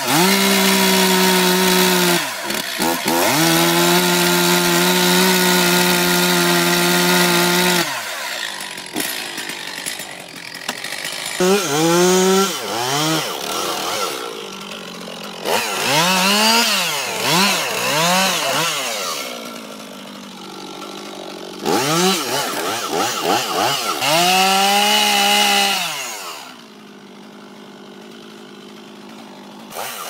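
A large Stihl two-stroke chainsaw cuts through the trunk of a big tree. It runs steadily at full throttle for the first several seconds, then revs up and down again and again as the cut goes on, and drops low near the end.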